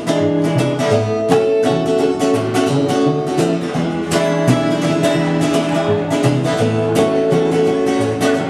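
Acoustic guitar strummed in a steady rhythm with a plucked upright double bass walking underneath: an instrumental passage of an acoustic roots-rock song, with no vocals.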